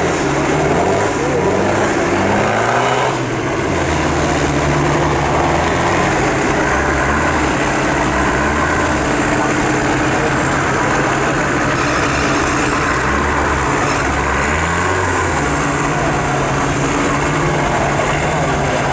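Engines of off-road 4x4 trucks running, their pitch stepping up and down again and again as they are revved.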